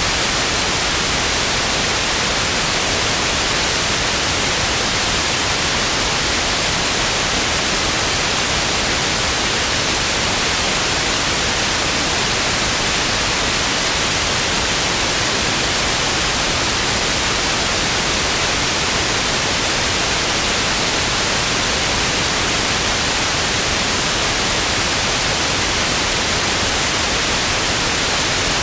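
Television static: a steady, loud hiss of white noise, even and unchanging throughout, strongest in the upper treble.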